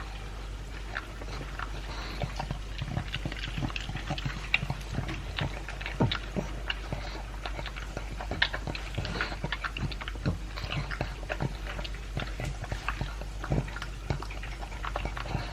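A pug chewing dry kibble and beef chunks: irregular crunches and wet clicks of teeth and jaws, several a second, over a steady low hum.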